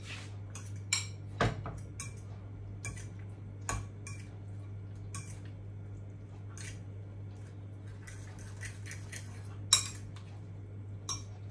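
A fork stirring cooked instant noodles and beaten egg in a bowl, clinking and tapping against the bowl in irregular strokes. The loudest clink comes near the end.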